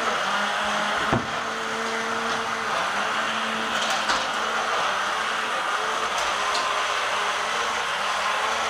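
Remote-control toy tank's small electric drive motors and gearboxes whirring steadily as it drives, with a sharp knock about a second in and another around four seconds in.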